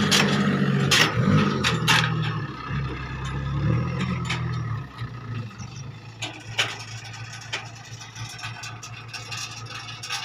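Six-wheel cargo truck's diesel engine working under load as the truck pulls through wet, muddy field ruts. The engine eases off about five seconds in to a quieter, steady drone, with scattered short clicks.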